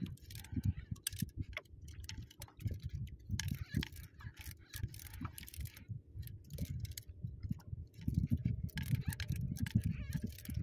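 Irregular clicking and light rattling over dull knocks and rubbing, as fishing tackle is worked by hand; the knocks are loudest near the end.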